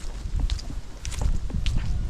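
Footsteps of a person walking on a forest path: a few uneven steps, each a low thud with a short crisp scrape on top.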